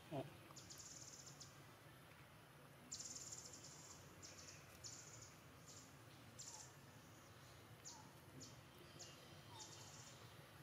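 Near silence, with faint high-pitched chirping from the surrounding forest in short bursts, roughly one a second and unevenly spaced.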